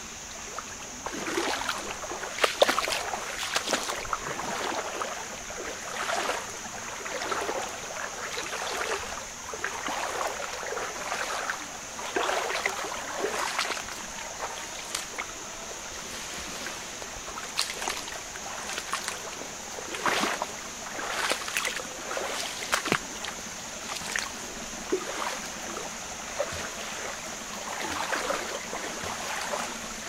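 Footsteps wading through a shallow jungle river, the water sloshing and splashing with each step about once a second, over a steady high-pitched drone.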